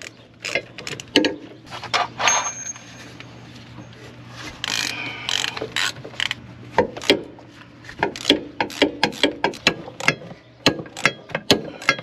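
Hand ratchet clicking as it backs off the rear hub assembly's mounting nuts with a 13 mm socket on an extension, the clicks coming in quick runs that grow denser near the end. A short scraping sound comes about five seconds in.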